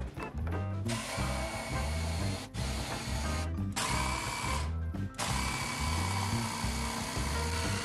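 Black+Decker 18 V cordless jigsaw sawing through a wooden board, with background music playing over it. The saw noise starts about a second in and drops out briefly a few times.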